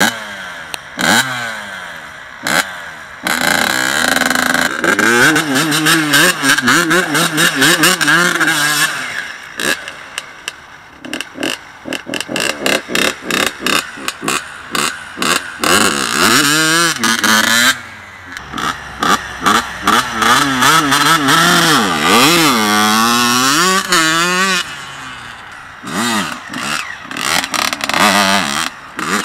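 1994 Yamaha YZ80's single-cylinder 80cc two-stroke engine revving hard and dropping back over and over as the dirt bike is ridden around a loop, its pitch climbing and falling with the throttle and cutting off sharply between bursts.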